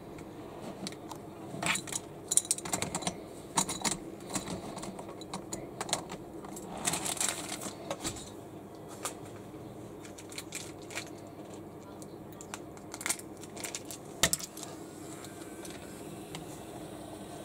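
Light clicks and clattering of a wooden toy train and its plastic track being handled, busiest in the first half, with a few sharp clicks again about two-thirds of the way in, over a faint steady hum.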